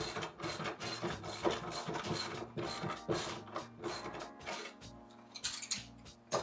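Socket ratchet clicking in quick repeated strokes as a 7/16 bolt is tightened on the steel hitch arm, about three clicks a second, dying away about four seconds in. A few sharp metal knocks follow near the end as the tool is set down on the table.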